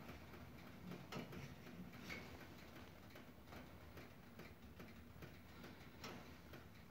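Near silence: quiet room tone with faint, irregular ticks about once a second or less, over a faint steady low hum.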